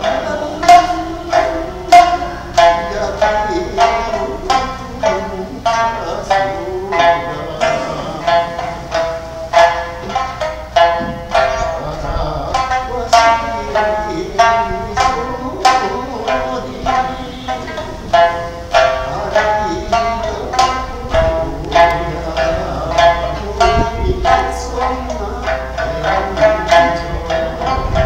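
Okinawan sanshin, the three-stringed snakeskin lute, plucked in a steady run of bright, sharp notes.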